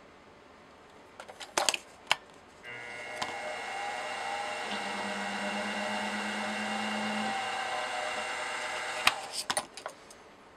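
Grizzly G0704 benchtop mill's spindle motor running steadily for about six seconds, with a countersink cutting into the metal workpiece partway through. Clicks and taps from handling tools come before it starts and after it stops.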